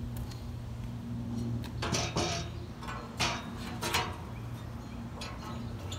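Steel rods and fittings of a fire-box cooking rig knocking and scraping against each other as they are handled and fitted, a few times about two to four seconds in, over a steady low hum.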